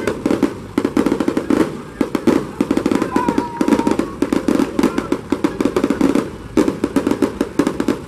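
Fireworks crackling: a dense, rapid run of small sharp pops that goes on with only a few brief breaks.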